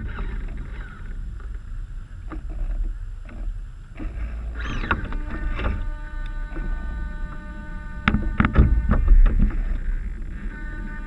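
Water splashing and slapping against the hulls of a Mini40 radio-controlled model trimaran under sail, over a low steady rumble of wind on the microphone, with a loud cluster of splashes and knocks about eight to nine seconds in. A faint steady whine comes in about halfway through.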